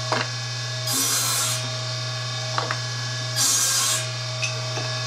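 Table saw running steadily, its blade cutting through small pieces of wood twice, each cut a short burst of about half a second, about a second in and again at about three and a half seconds. Light knocks of wood being handled come in between.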